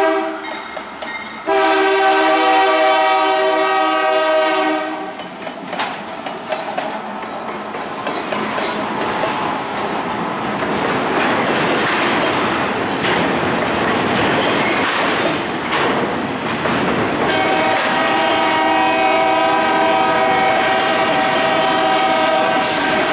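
Ferromex freight locomotive's air horn sounding a multi-note chord: a blast ending just after the start, another from about a second and a half in to about five seconds, and a long blast starting about 17 seconds in. Between the horn blasts, the wheels of passing double-stack container cars clatter and rumble on the rails.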